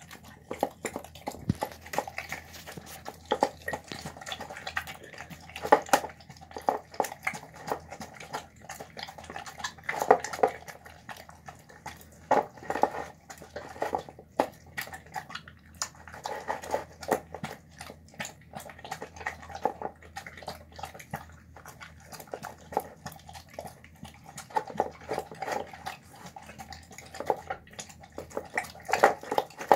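Dog eating soft rice and chickpeas from a bowl: a steady, irregular run of wet smacking, chewing and licking sounds, with small clicks of the mouth and muzzle against the bowl.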